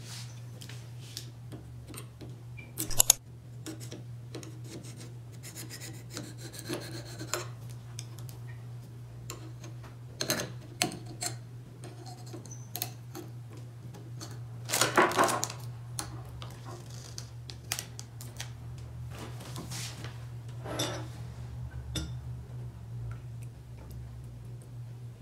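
Hands working at the cap of a bottle of Ribena blackcurrant concentrate: rubbing and scattered clicks, with a loud click about three seconds in and a louder rasping scrape about fifteen seconds in. A steady low hum runs underneath.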